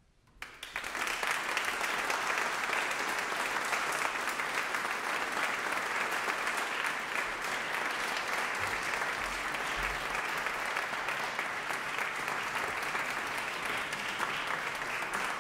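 Audience applause, breaking out about half a second in and holding steady as a dense, even clapping.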